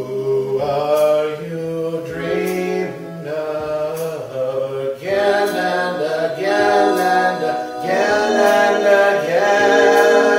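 Electronic keyboard playing sustained, organ-like chords that change every second or so, with a faint high tick recurring about once a second.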